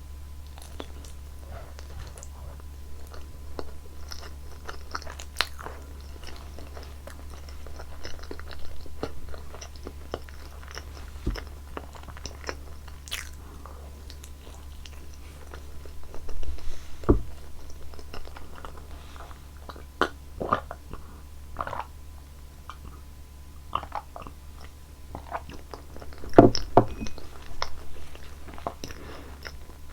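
Close-miked chewing and biting of soft roasted pumpkin sweet potato: irregular wet mouth clicks and smacks, with louder bursts of bites about two-thirds of the way in and near the end, over a steady low hum.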